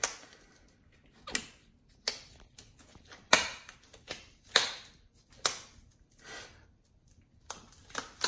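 Thin disposable gloves being stretched and pulled onto the hands, the cuffs snapping sharply against the wrists about eight or nine times at irregular intervals, with faint rubbing between.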